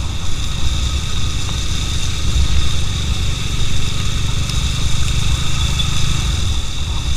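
Motorcycle engine running steadily under way, with a heavy low rumble of wind on the microphone and a steady hiss over it.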